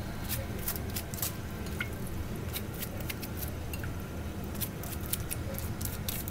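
Silicone pastry brush dabbing sticky sauce onto baked chicken wings in a foil-lined tray: light, irregular clicks and wet smacks, several a second, over a steady low hum.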